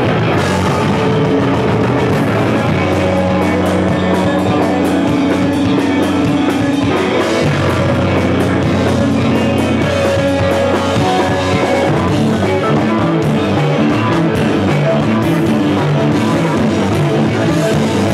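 Live rock band playing loud and steady: two electric guitars, bass guitar and a drum kit.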